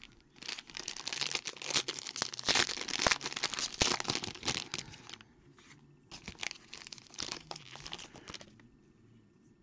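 Clear plastic and silver foil wrapping of a Topps Tier One trading card pack crinkling as it is crumpled by hand. The crackling comes in two spells: from about half a second in to about five seconds, then again from about six to eight and a half seconds.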